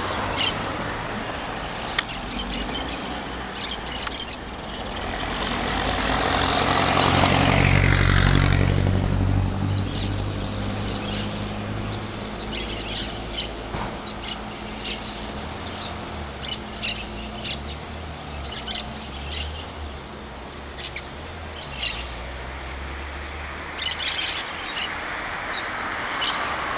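Small birds chirping in short, scattered calls. A low rumble swells and fades about eight seconds in.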